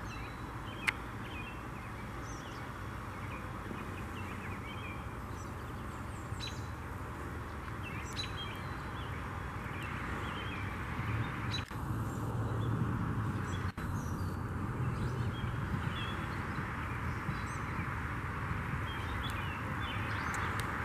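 Scattered short bird chirps and whistles over a steady hiss of background noise, with one sharp click about a second in.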